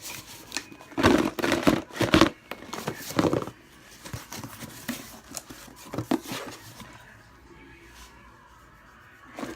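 Handling noises: a few seconds of loud rustling and knocking, then quieter scattered clicks and crinkles.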